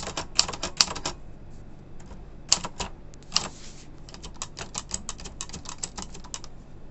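Omega 30 manual typewriter being typed on: type bars striking in quick runs of clicks, with a pause and one longer, noisier stroke around the middle, then the clicks stop near the end.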